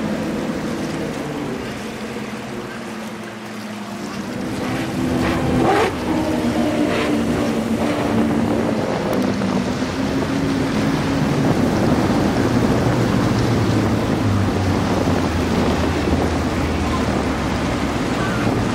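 Outboard motors of a center-console powerboat running at speed, with the rush of water and spray from its wake. A few seconds in the engine note drops lower, and the water rush grows louder and stays steady.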